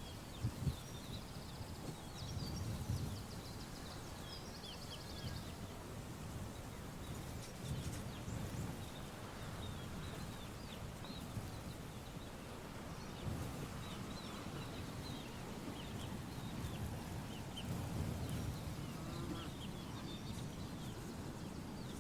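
Small birds chirping off and on over a steady low background rumble.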